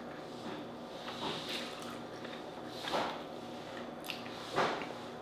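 Wet, squishy mouth sounds of eating cooked Dungeness crab meat, with three soft smacks about a second, three seconds and four and a half seconds in; the last two are the loudest.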